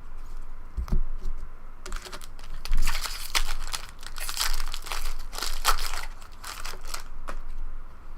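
Foil wrapper of a jumbo trading-card pack crinkling and tearing as it is ripped open, a dense crackle lasting about five seconds, after a soft thump about a second in.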